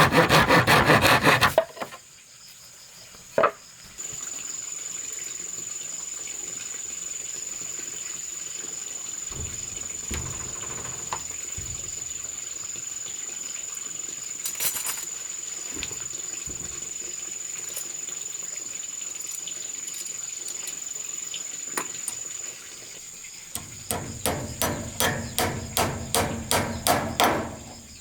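Hand sawing of wood that stops about a second and a half in, then a steady high-pitched insect drone. Near the end comes a few seconds of rhythmic tool work on wood, about three strokes a second.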